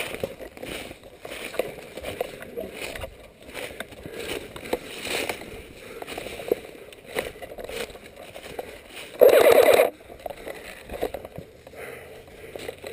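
Footsteps crunching through dry leaf litter and brushing past brush as a player moves through the woods. About nine seconds in comes a loud burst of rapid clatter lasting under a second.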